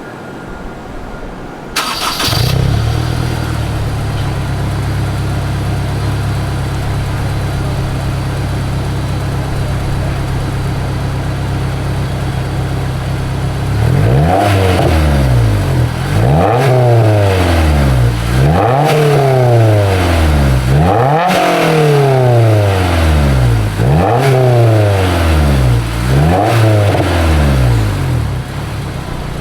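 Honda S2000 four-cylinder engine breathing through a stainless straight-through Revel Touring-S cat-back exhaust. It starts up about two seconds in and idles steadily. From about halfway through it is blipped six times, each rev rising and falling back to idle, and it settles back to idle near the end.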